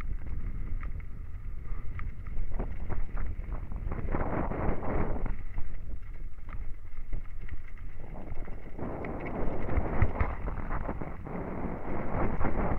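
Downhill mountain bike descending a rocky slate trail: wind buffeting the microphone, tyres crunching over loose stone, and the bike rattling with sharp knocks over rocks. It gets louder and rougher about four seconds in and again from about eight seconds on.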